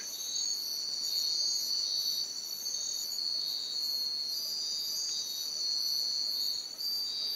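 Night insect chorus, crickets among them: two steady high trills overlaid by a higher chirp repeating about twice a second.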